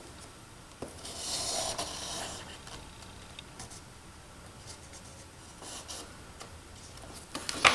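Pen tracing around the edge of a cardstock pattern on paper: soft scratching strokes, loudest about a second in, then fainter. A sharp tap just before the end.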